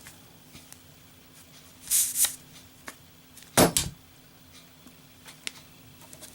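Zippo lighter lit with a short rasp about two seconds in, then its lid drops shut by its own weight with a loud metallic clack, snuffing the flame in a lit drop test.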